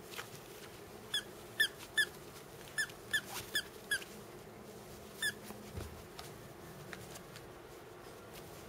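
Squeaker inside a fabric bone-shaped dog toy squeezed by hand: about eight short squeaks in quick runs over the first five seconds, each dropping slightly in pitch.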